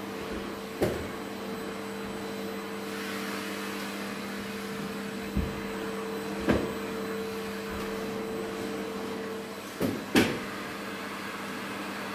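Household vacuum cleaner running steadily as its hose and wand are worked behind a sofa. Several sharp knocks break in, the loudest a close pair near the end.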